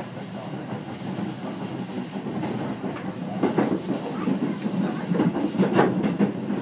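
Seibu 4000 series electric train running, heard from inside the car: a steady low hum of the running gear. From about halfway through, the clickety-clack of the wheels over rail joints grows louder.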